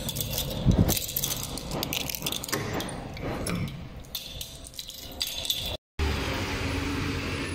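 A bunch of keys jangling and clicking in a door lock as a front door is unlocked and opened. About six seconds in, after an abrupt cut, steady street traffic noise.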